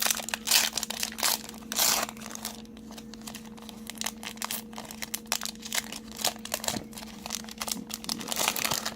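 Foil Pokémon booster pack wrapper crinkling and tearing as it is opened by hand, loudest in the first couple of seconds, with a steady low hum underneath.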